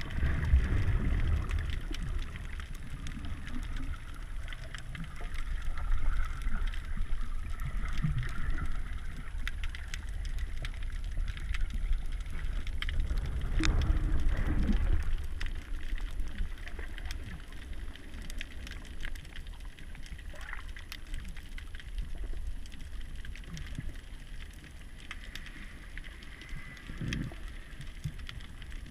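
Underwater ambience picked up by a submerged camera: a steady low rumble of moving water with scattered faint clicks and a few gurgles, one about halfway through and one near the end.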